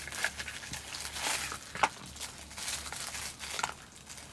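Plastic packaging crinkling and rustling as it is handled and opened, with scattered small clicks and one sharper click a little under two seconds in.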